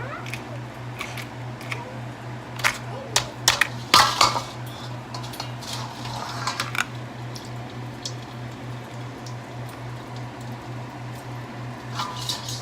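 Kitchen utensils clattering against a cooking pot and dishes, with a cluster of sharp knocks about three to four seconds in and a few more around the middle, over a steady low hum.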